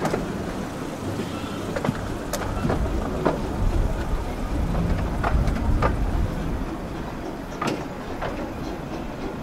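Miniature railway train running along its track, heard from an open carriage: a steady low rumble with irregular clicks and knocks from the wheels and carriages.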